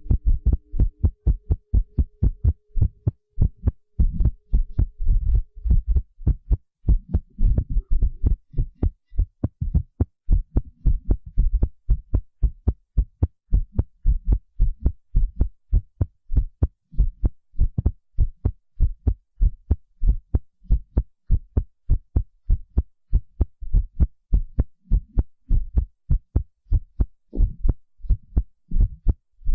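Heartbeat sound effect: a fast, steady run of low thumps, roughly three a second.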